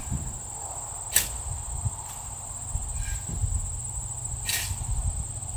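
Shovel scooping fine sand and tossing it back into a post hole, with two short sharp scrapes, one about a second in and one near the end. Crickets trill steadily throughout.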